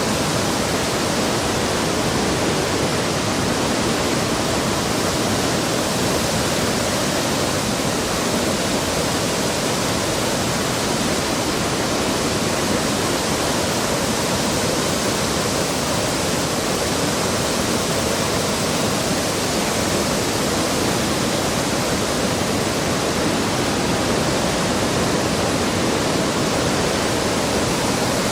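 Waterfall rushing with a steady, loud roar of falling water.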